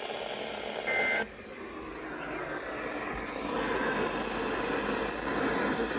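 Weather radio broadcast: about a second in, a brief two-tone SAME digital data burst, the end-of-message code sent after a warning. A steady hiss and hum follow.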